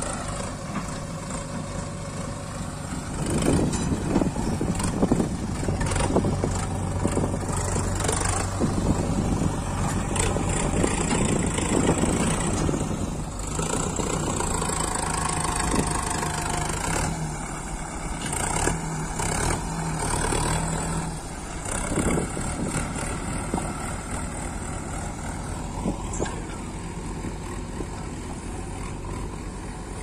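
Diesel engines of a Sonalika DI 750 tractor and a JCB 3DX backhoe loader running together, the tractor working under load as its rear blade drags loose soil. The running gets louder and rougher for several seconds early on, then settles to a steadier run.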